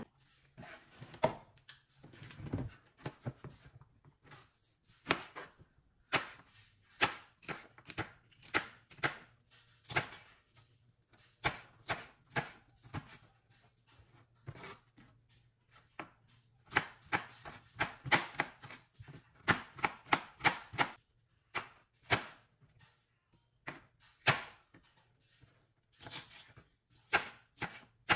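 Kitchen knife chopping small sweet peppers on a plastic cutting board: sharp knocks of the blade through the pepper onto the board, coming in quick runs with short pauses between them.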